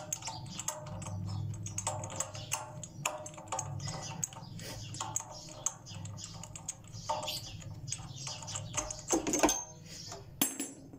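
Metal spark-plug socket wrench clicking and scraping on the spark plug as it is turned to unscrew the plug from a petrol generator's single-cylinder engine head, in quick irregular clicks, with a louder clatter about nine seconds in.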